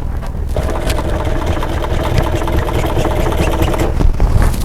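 Sewing machine stitching at a slow, steady speed, its motor humming steadily. The hum starts about half a second in and stops near the end.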